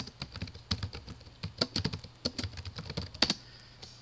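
Computer keyboard typing: quick, irregular keystrokes, with a burst of louder strokes a little over three seconds in, after which the typing stops.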